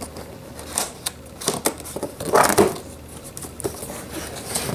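Fingers handling a cardboard box, irregular taps and scrapes on the cardboard around its tuck flap, with a longer, louder scrape a little past halfway.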